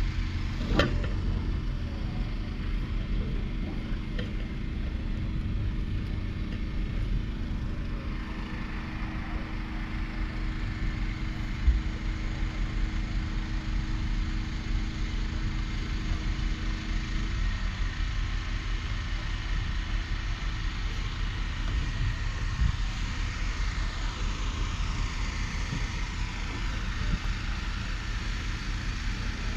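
An engine running steadily with a low rumble and a steady hum, which eases about halfway through. There is a short knock about a second in and a brief thump near the middle.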